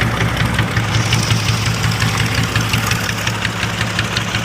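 A boat engine idling steadily, with a regular fast knocking running through its hum.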